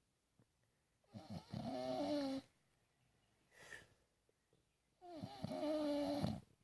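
English bulldog snoring: two long snores about four seconds apart, each a pitched drone lasting about a second and a half, with a faint breath in between.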